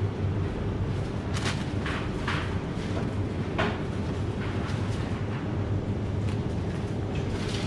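Steady low hum of a supermarket's open refrigerated display case, with a few light knocks and clicks in the first few seconds.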